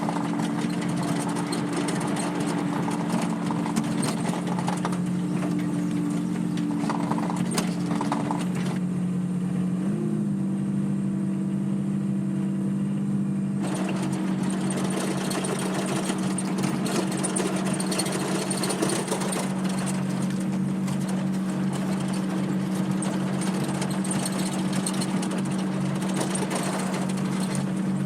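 Skid steer loader engine running steadily with a clattering, rattling overlay; the engine speed steps up slightly about ten seconds in.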